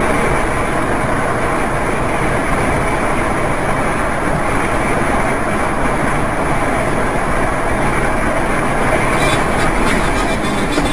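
Steady road noise of a moving vehicle, a dense, even rumble and hiss that starts abruptly.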